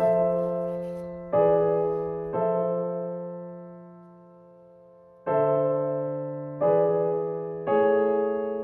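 Background piano music: slow chords struck one after another, each left to ring and fade, with a pause of nearly three seconds after the third.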